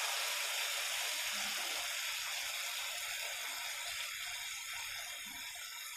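Thick sauce sizzling in a nonstick frying pan, a steady hiss that slowly dies down.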